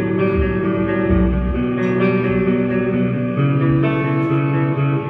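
Amplified electric guitars playing held chords and single notes that ring out, without drums.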